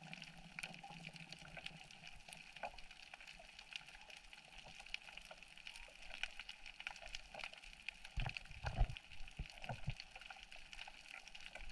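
Faint underwater crackling of many scattered small clicks, with a few low thumps about eight seconds in.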